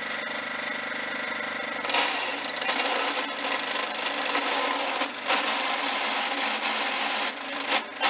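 John Deere STX30 riding mower's engine running steadily. About two seconds in, a loud, rough grating noise from the drivetrain takes over, breaking off briefly twice: the sound of a bad transmission.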